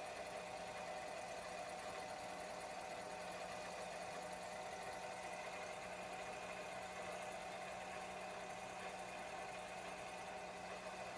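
Small generator engine running with a steady, even hum.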